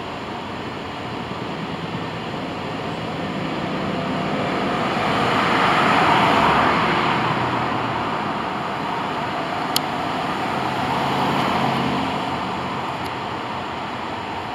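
Road traffic passing on a multi-lane street: a steady hiss of tyres and engines that swells as vehicles go by, loudest about six seconds in and again around eleven to twelve seconds. A single sharp click near ten seconds.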